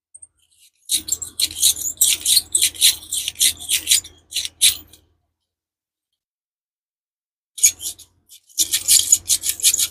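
A small hand tool boring a hole through a cured resin piece: a quick run of scratchy, rasping clicks in two spells about three seconds apart, with a pause between them.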